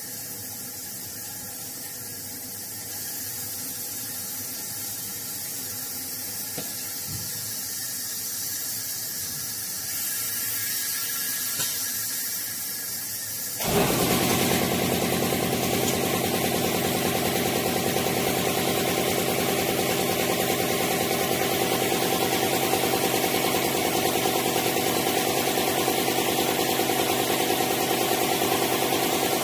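DISCO DFG8540 wafer back grinder initializing: a steady hiss that steps up in level a couple of times, then about halfway through a motor starts suddenly and runs on with a steady, louder hum made of several tones.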